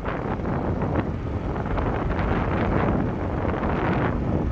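Wind rushing over the microphone of a motorcyclist's camera while riding: a steady rush with a few brief gusts, over the sound of the moving motorcycle.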